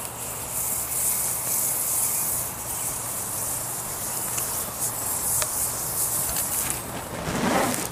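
Petroleum-based ballistics gel burning and sizzling around a red-hot steel AK-74 style muzzle brake: a steady high hiss with a few sharp pops, fading near the end.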